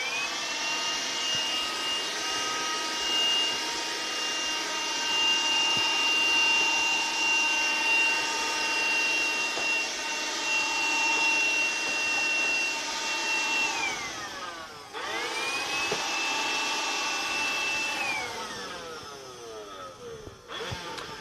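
Handheld vacuum cleaner switched on, its motor running with a steady high whine as it sucks bugs off a ceiling. After about 14 seconds it winds down, is switched on again for about three seconds, then winds down to a stop.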